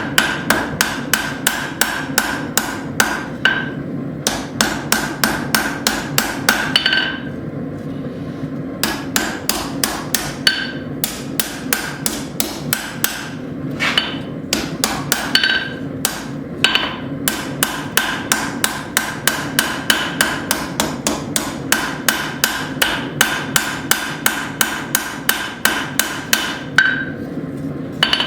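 Hand hammer striking hot steel on an anvil in a quick steady rhythm, about three blows a second with a few short pauses, each blow ringing: texturing the surface of a forged hook rather than drawing it out. A steady low rumble runs underneath.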